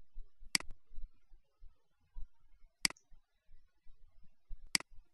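Computer mouse clicking: three sharp single clicks about two seconds apart, and a fourth right at the end.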